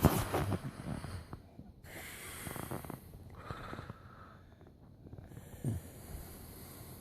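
A woman snoring: a few drawn-out snoring breaths after a louder burst of sound right at the start.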